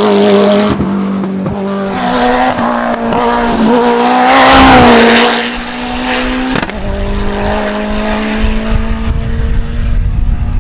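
Race car engine at full throttle on a hill climb, its note breaking and changing pitch several times as it shifts gears, loudest about four to five seconds in.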